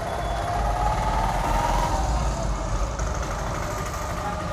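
Steady low mechanical hum with no clear breaks.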